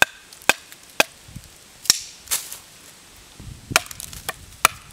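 A knife being batoned through a sugar maple limb with a beech hardwood baton, trimming off its edges: sharp wooden knocks about every half second, then a quicker run of lighter knocks near the end.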